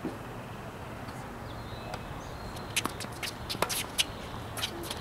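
Tennis doubles play on a hard court: a steady outdoor background, then from about three seconds in a run of short, sharp ticks and taps from the ball being bounced and struck and from shoes on the court surface.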